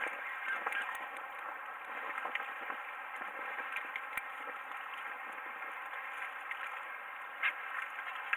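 Steady hiss of wind and lapping water, with scattered small clicks and taps from handling a fishing rod and reel. A sharper tap comes about seven and a half seconds in.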